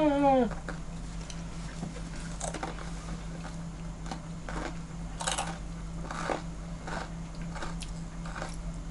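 Scattered light clinks and scrapes of cutlery and dishes at a breakfast table, a few a second at irregular intervals, over a steady low hum.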